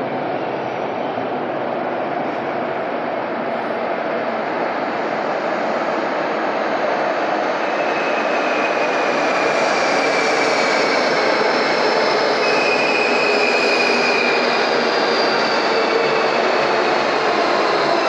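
Renfe Cercanías electric commuter train running into an underground station. A steady rumble of wheels on rail builds gradually, and about halfway through high whining and squealing join it, falling slightly in pitch.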